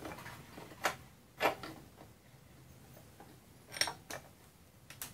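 Light metallic clicks and clinks, about six spread over five seconds, of a long metal tool knocking against the swingarm and jackshaft parts as they are worked into line. One clink just before 4 s rings briefly.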